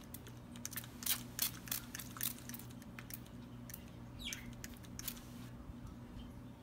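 Trigger spray bottle misting alcohol onto a mica-dusted soap mould before the next pour: a quick run of short hissing spritzes in the first two and a half seconds, and a couple more about five seconds in. A pet bird gives one short chirp about four seconds in.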